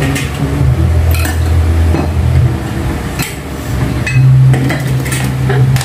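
Clicks, clinks and knocks of dish-rack rods and parts being handled and fitted together, over a steady low hum.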